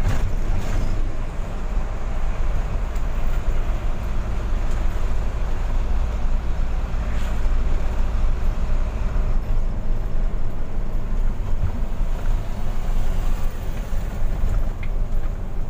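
Mitsubishi Fuso 220 PS diesel truck driving, heard from inside its cab: a steady deep engine drone mixed with road noise.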